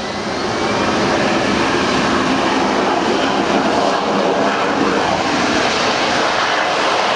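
AV-8B Harrier's Rolls-Royce Pegasus turbofan at takeoff power during a short takeoff run, a loud jet rush that swells over the first second and then holds steady as the jet lifts off.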